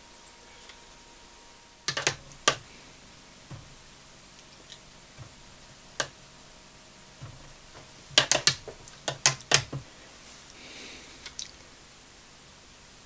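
Scattered sharp clicks and taps of painting tools being handled against hard surfaces, with a quick run of clicks about eight to ten seconds in.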